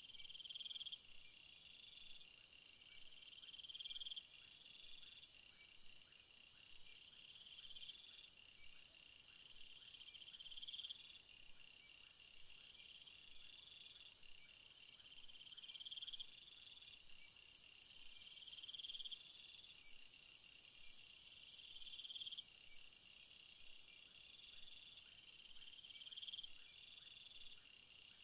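Quiet nature ambience of birdsong and insect chirping. A short rising chirp phrase repeats about every two seconds over finer pulsed chirps, and a steady high-pitched shrill sounds for several seconds in the middle.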